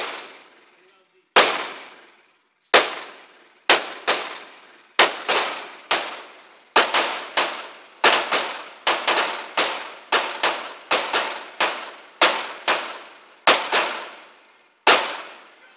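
Glock 31 pistol with a 9mm barrel firing about thirty shots, a few spaced ones at first, then quick strings of about three shots a second. Each shot rings out with a trailing echo.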